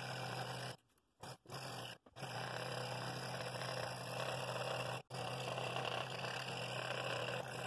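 Scroll saw running with its blade cutting around a maple bowl base at a bevel: a steady hum and buzz that cuts out abruptly a few times.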